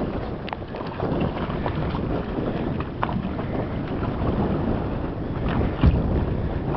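Wind buffeting the microphone, a steady rumbling noise with a few faint knocks and one louder thump about six seconds in.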